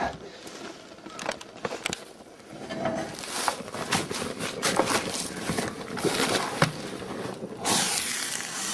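Clattering, knocks and rustling as a burning frying pan is carried outside. Near the end a louder, steady sizzling hiss sets in: the hot, flaming pan meeting snow.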